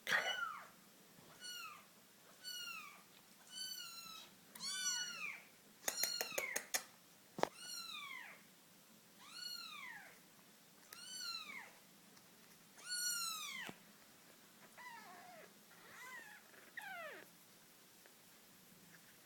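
British Shorthair kitten meowing over and over, about a dozen rising-then-falling meows roughly a second apart, which stop near the end. A quick run of sharp clicks comes about six seconds in.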